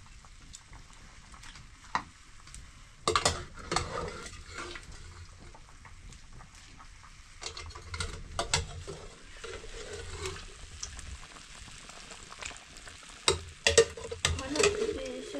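Food frying in a pan over a steady sizzle while it is stirred, the utensil scraping and knocking against the pan. The louder scraping comes in bursts, about three seconds in, around eight seconds and again near the end.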